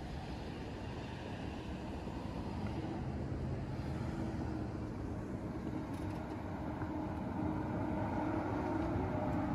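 Street traffic: a steady hum of car engines and tyres, growing a little louder near the end as a vehicle passes.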